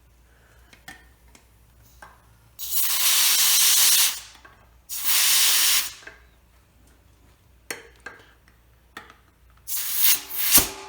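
Compressed air hissing out of an air hose fitting in short bursts: two blasts of about a second and a half and a second, then a shorter broken burst near the end, with small clicks of the fitting between them.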